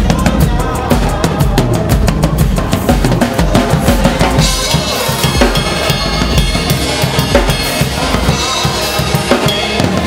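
Acoustic drum kit played with sticks in a steady dance groove: kick drum, snare and cymbals, with cymbal wash filling the top end from about halfway through.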